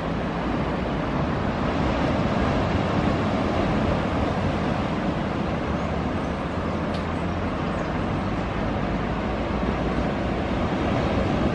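Steady outdoor ambience of distant road traffic blended with ocean surf: an even, unbroken rumble and wash with no distinct events.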